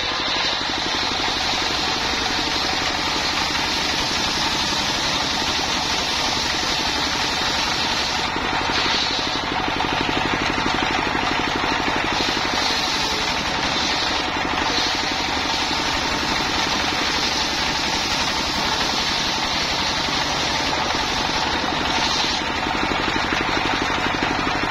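Single-cylinder stationary diesel engine running steadily under load, driving a circular saw that rips a log slab lengthwise into boards. A high saw sound drops out briefly a few times.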